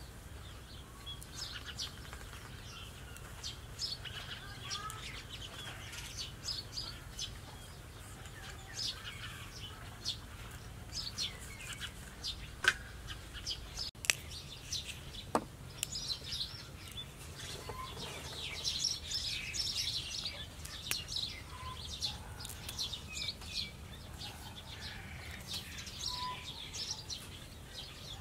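Small birds chirping in short, repeated calls over a low steady background hum, and a few sharp snaps as pumpkin vine stems are broken and peeled by hand.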